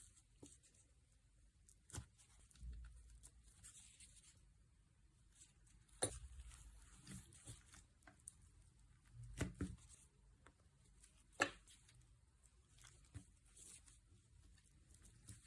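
Faint hand-handling sounds of a squishy stress-relief toy being squeezed and worked: scattered soft clicks and taps with light rustling between, a few sharper ticks standing out.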